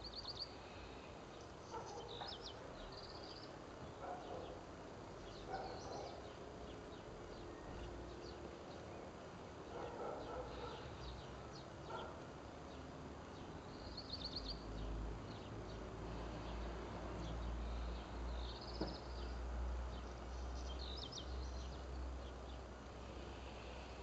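Garden ambience: small birds give short, high chirping trills every few seconds, with fainter mid-pitched sounds in between. A low rumble joins about halfway through.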